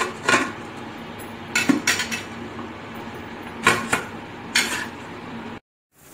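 Black pressure cooker's lid being fitted and locked by hand: several sharp metallic clanks and knocks of lid and handles against the pot, over a faint steady hum.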